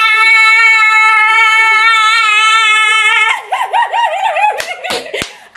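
A woman's voice holding one long, high, slightly wavering note for about three seconds, then breaking into a wobbling wail for about a second. A few sharp clicks follow near the end.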